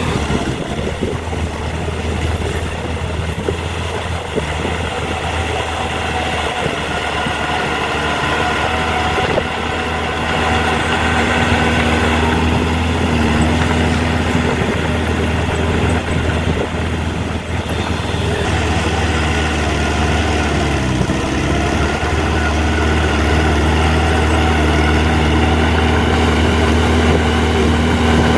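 Heavy diesel engine of earthmoving machinery running steadily, its note dipping briefly about twenty seconds in, then running on a little louder.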